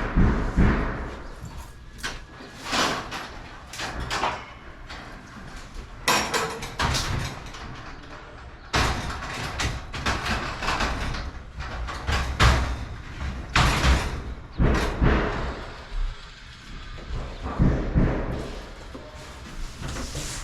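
Irregular knocks, bangs and clanks, about one every second or two, from work on a sectional garage door and its hardware.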